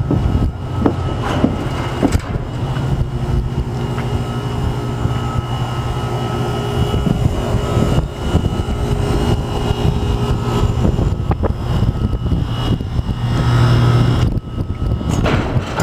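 An engine running steadily throughout, with scattered knocks and clatter over it.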